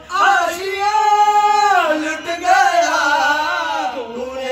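Voices singing a Sufi qawwali into a handheld microphone, holding long notes that then slide up and down.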